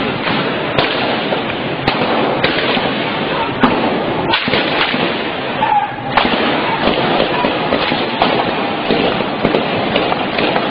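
Loud, dense crackle of many sharp pops and cracks over a noisy background, with voices mixed in.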